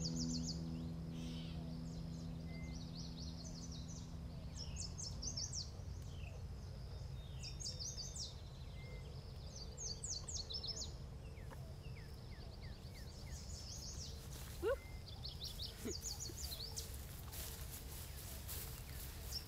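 The last notes of a Celtic harp ringing out and fading away over the first few seconds, then birds singing in repeated high chirping phrases. Near the end there is rustling as someone walks through grass.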